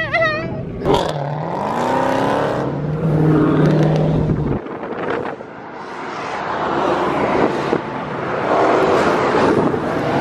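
Car engine revving, its pitch dipping and climbing, then held steady for a couple of seconds. Then comes a broad, rising noise of cars moving in traffic, heard from inside a moving car.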